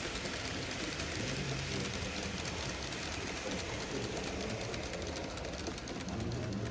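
N-gauge model train running on the layout: a steady small-motor whir with fine, rapid clicking of the wheels over the track.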